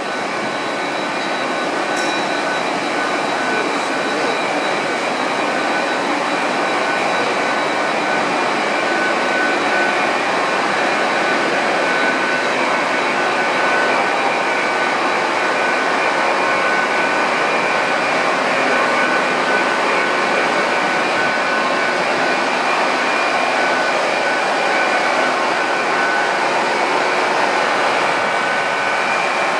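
Hitachi Class 800 bi-mode train's underfloor diesel generator units running steadily: an even drone with a few steady high-pitched whining tones.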